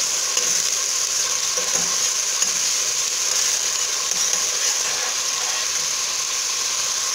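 Diced onions sizzling steadily as they fry in hot oil in a stainless steel pot, stirred with a metal spoon: the onions are being sautéed until lightly pink.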